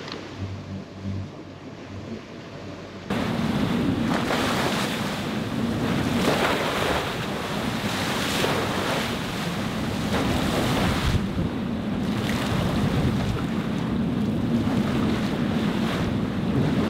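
Wind blowing across the microphone and waves rushing and splashing around a sailing catamaran beating into heavy seas. About three seconds in the sound gets suddenly much louder, with gusts and wave surges rising and falling every second or two.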